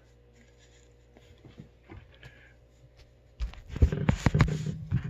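A paper tissue rustles softly as it is unfolded. About three and a half seconds in, a person blows their nose hard into it, in several loud, noisy blasts.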